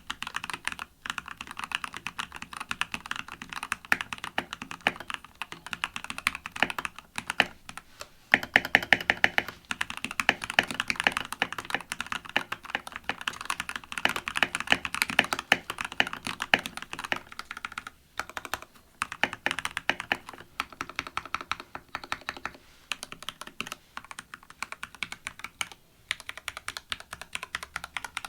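Typing on a Keychron K8 Pro mechanical keyboard with Gateron G Pro Brown switches: fast runs of keystrokes, with brief pauses about 8, 18 and 26 seconds in.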